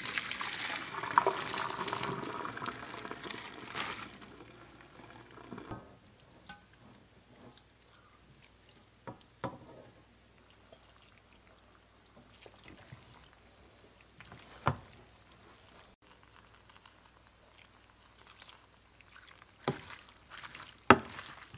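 Pasta water and fettuccine poured from a pot into a metal colander, a splashing pour for about the first four seconds. After that come scattered quiet scrapes and knocks as food is slid into a stainless steel pot and stirred with a wooden spoon.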